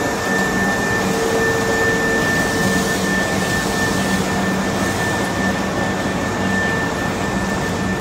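Steady mechanical drone with a constant high whine and low hum from a subway train standing at the platform, its onboard equipment running.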